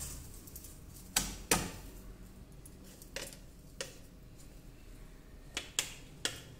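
Stainless-steel mixer-grinder jar and spatula knocking lightly against a steel plate while ground chutney powder is emptied out: a handful of scattered sharp metal-on-metal taps.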